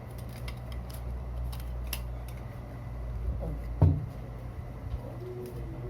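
Ring light and tripod parts being handled: small clicks and rattles, with one louder knock about four seconds in, over a steady low hum.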